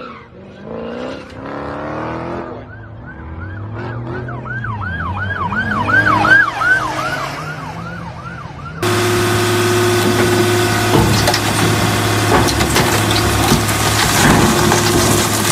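Tyres squealing as a car slides, then a siren in a fast yelp, rising and falling about three times a second. It cuts off suddenly, and a car crusher's hydraulic press runs with a steady hum, with cracking and creaking as it flattens a Bentley Continental GT.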